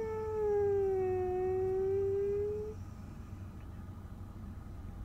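Husky howling one long held note that sags a little in pitch and stops about two and a half seconds in, then a low steady hum. The dog is groggy and coming round from anesthesia.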